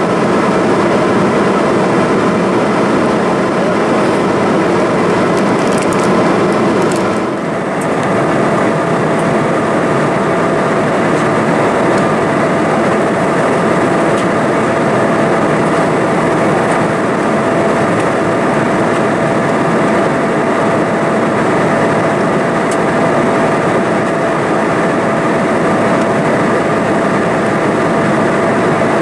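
Steady in-flight cabin noise of an Embraer E-175's General Electric CF34-8E turbofans and rushing air, heard from a window seat by the wing: a constant loud rushing sound with steady whining tones in it. About seven seconds in the sound dips briefly and changes tone, and a steady mid-pitched hum stands out after that.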